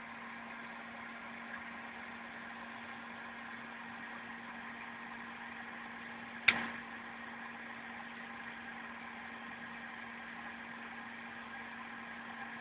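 Electric fan running with a steady hum. One sharp click about halfway through.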